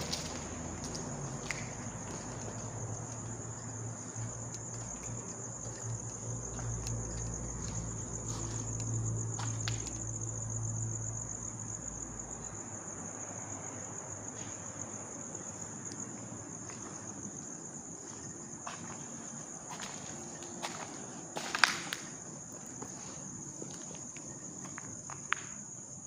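Steady, high-pitched chorus of crickets. A low drone runs under it through the first half and stops about halfway, and a few sharp knocks stand out, the loudest about 21 seconds in and another near the end.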